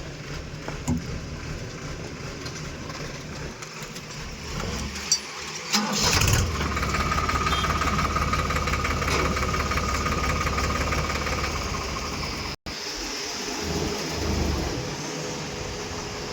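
Heavy diesel engine of earthmoving machinery running, getting markedly louder about six seconds in, with a steady whine over the rumble for several seconds. The sound cuts out for an instant about twelve seconds in.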